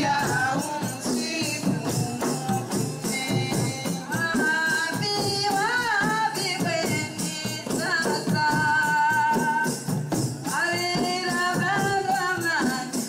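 A group of women singing together over fast, steady rattling percussion like a tambourine, with some voices holding long wavering notes in the middle.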